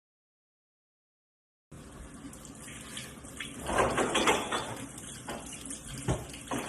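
Under two seconds of dead silence, then a tap running into a sink, with a few louder clatters about four and six seconds in.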